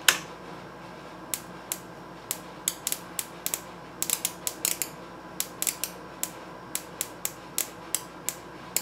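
High-voltage sparks snapping across the gap between two alligator clips, driven at about 6 kV DC by an Acopian high-voltage supply with its current held under a milliamp. It starts with one loud snap, then gives sharp irregular snaps a few times a second as the gap breaks down again and again.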